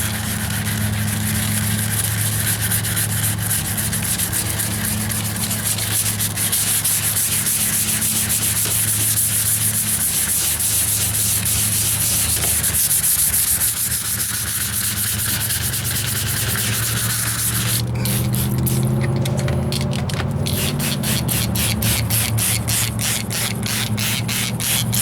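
Hand wet sanding of automotive filler primer on a steel wheel arch: steady rasping of abrasive paper rubbing the panel. About three-quarters of the way through it turns into quick, even back-and-forth strokes of about three a second. A steady low hum runs underneath.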